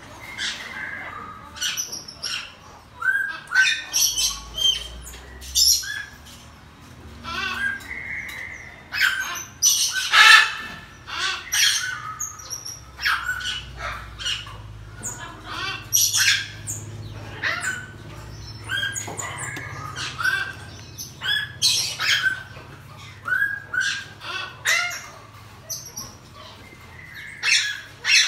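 Pygmy marmosets giving many short, high-pitched chirps and squeaky calls, one every second or so, some sharper and some longer and harsher.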